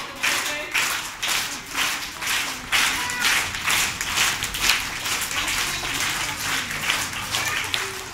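A crowd of children clapping together in a steady rhythm, about three claps a second.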